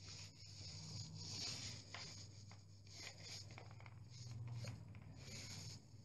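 Paint-loaded mini roller rolling over a wall: a faint, soft rubbing hiss that swells with each of several strokes, over a steady low hum.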